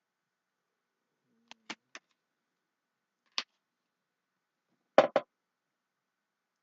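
Small plastic miniature parts clicking and tapping as they are handled and pressed together: three light clicks about a second and a half in, one near the middle, and a louder quick double knock about five seconds in.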